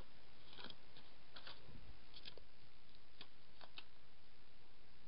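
Paper stickers being handled: a sticker peeled from its sheet and pressed onto a planner page, making a handful of soft paper rustles and light taps over a steady hiss.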